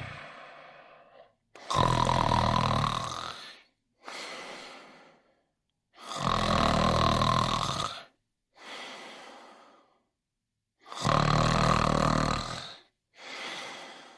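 Cartoon dog's snoring: three long, loud, rasping snores about four and a half seconds apart, each followed by a quieter breath out.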